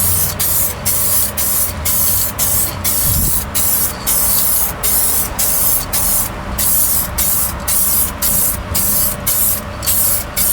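White spray paint being sprayed in short, rapid bursts of hiss, about two or three a second, touching up a patch on a car's firewall.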